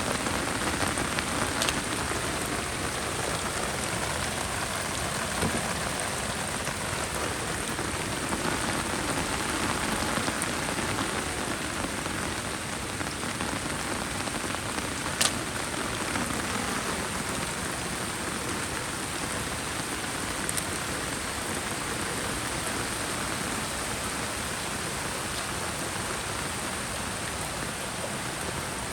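Heavy rain falling steadily, a dense even hiss of drops, with one sharp click about halfway through.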